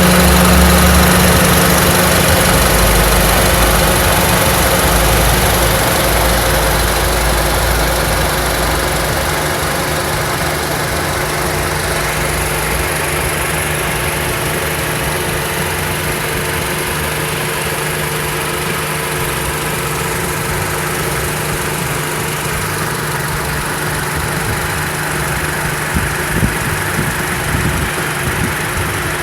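Honda Step WGN RG1's four-cylinder petrol engine idling steadily, loudest at the start and easing a little over the first ten seconds. The engine is the one being checked for an abnormal noise from its belt-driven accessories.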